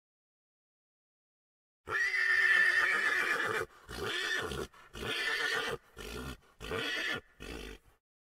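Horse whinnying: one long call about two seconds in, then five shorter calls, quieter than the first.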